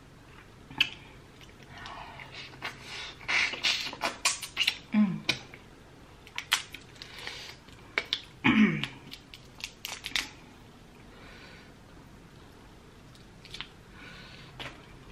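Shell being peeled by hand off a large boiled, butter-sauced shrimp: a run of sharp crackles and clicks with some wet tearing. There are two short hums falling in pitch, about five and eight and a half seconds in.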